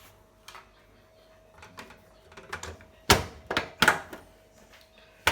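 A run of sharp clicks and knocks from handling the Hotpoint washing machine's lint filter and its access flap, a few light ones early, then a cluster of louder knocks about three to four seconds in and another near the end.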